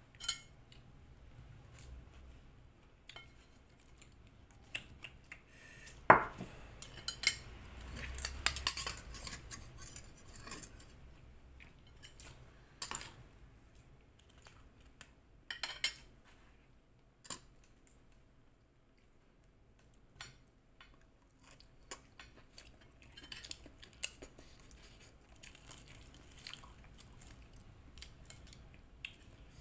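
Metal spoon and fork clinking and scraping on a plate while eating fish and rice, in scattered clicks, with one sharp ringing clink about six seconds in and a busy run of clinks just after it.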